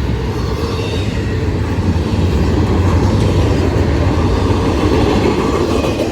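Freight train's cars rolling past on the rails: a steady rumble of wheels and cars that swells in the middle and eases a little near the end.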